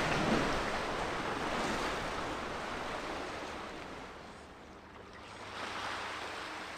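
Sea waves washing on the shore: a wash that fades about four seconds in, then another wave swells up about a second later.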